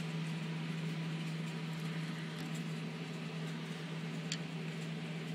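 Faint rustling and scratching of hands handling the washing machine drain pump's power connector and wiring, with one short click about four seconds in, over a steady low hum.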